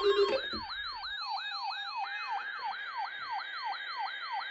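Electronic weather alert alarm sounding a siren-like yelp: a falling sweep repeated about four times a second. It has gone off on the first header of a weather radio's weekly test.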